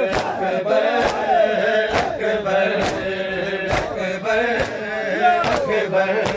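Men chanting a Punjabi noha, a mourning lament, in unison, with sharp chest-beating slaps of matam landing in time about once a second.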